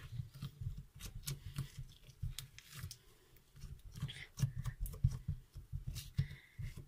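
Glitter slime squished and poked by fingers right at the microphone: irregular sticky clicks and small pops over dull low bumps of handling.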